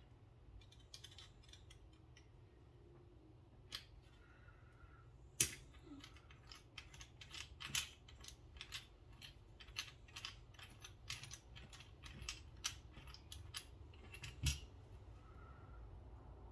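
Light metallic clicks and taps of small knife parts and a driver being handled during a pocket-knife teardown, coming irregularly, with the loudest click about five seconds in.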